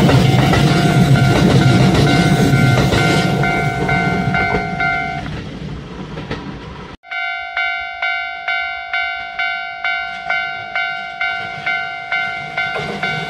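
Railway level-crossing warning bell ringing in a steady rhythm of about two strikes a second while a train rumbles past; the rumble fades away. After a sudden cut about seven seconds in, the crossing bell rings on its own.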